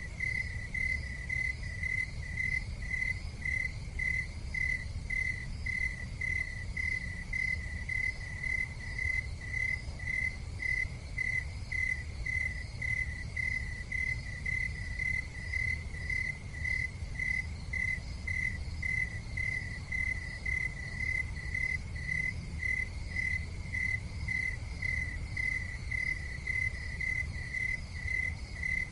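An insect chirping steadily in an even rhythm, about two high chirps a second, over a low steady rumble.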